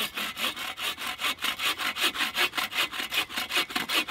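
Folding bow saw cutting through a dead wooden pole in fast, even back-and-forth strokes, about five a second.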